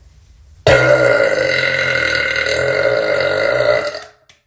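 A woman's single long, loud burp that starts suddenly less than a second in, holds for about three seconds and fades out. She has just said she is bloated and has to burp.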